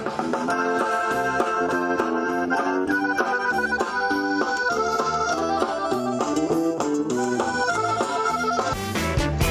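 Norteño band playing an instrumental passage: an accordion carries the melody over the strummed twelve-string bajo sexto, bass guitar and drums.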